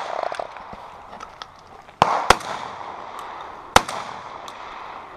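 Browning Silver Hunter 12-gauge semi-automatic shotgun firing buckshot: two sharp reports close together about two seconds in and another about a second and a half later, each trailing off into echo.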